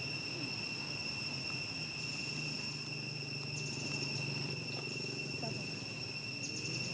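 Steady, high-pitched insect drone, unbroken through the whole stretch, over a low background murmur.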